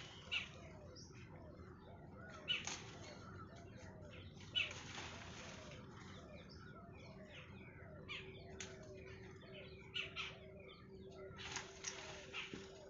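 Leaves rustling and shaking several times as a nilgai tugs and tears them off a branch while browsing, with small birds chirping in the background.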